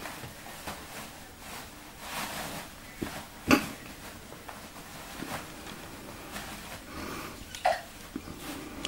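Kittens scuffling in loose toilet paper on a hard floor: soft, irregular rustling of paper, with one sharp knock about a third of the way in and a smaller one near the end.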